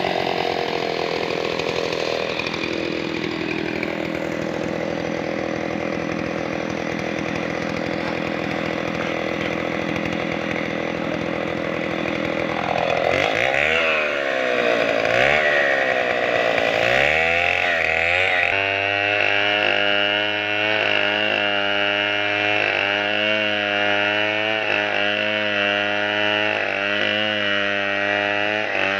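Chainsaw engine running steadily, then revved up and back down about three times about halfway through. After that comes a steadier engine sound that pulses evenly.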